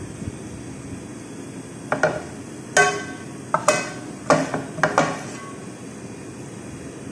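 Metal slotted spoon knocking against the glass baking dish while spreading minced meat sauce: about seven sharp clinks between two and five seconds in, each ringing briefly, over a steady low hum.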